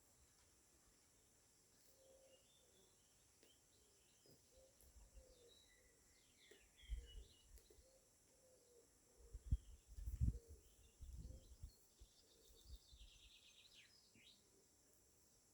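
Faint birdsong: scattered short chirps and a quick trill near the end. A few gusts of wind buffet the microphone around the middle and are the loudest sounds.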